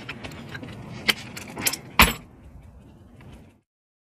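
Combination wrench clicking and knocking against an exhaust manifold stud and nut on a Honda cylinder head as it is worked to break the stud loose. A few sharp metallic clinks, the loudest about two seconds in.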